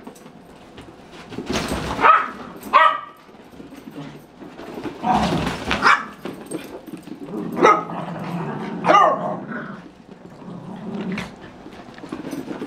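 Small dogs at play, giving several short, sharp barks and yips a second or more apart, with low play growling between them.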